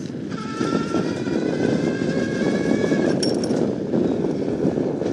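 Wind rush on the microphone while riding an iZip e-bike. The 24-volt assist motor gives a high whine that rises slightly in pitch and cuts out about three seconds in.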